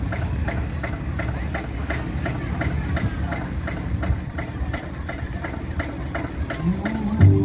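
Tractor engine idling, a steady low rumble with an even clatter of about five beats a second. Music starts up again near the end.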